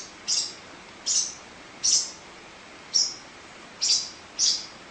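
Young pet birds, about five weeks old, chirping: short high peeps, about six of them, spaced roughly a second or less apart.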